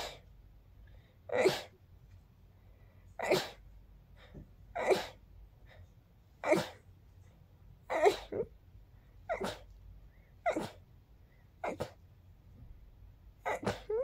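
A person sneezing repeatedly, a quick series of about nine or ten short, girly-sounding sneezes, roughly one every second and a half.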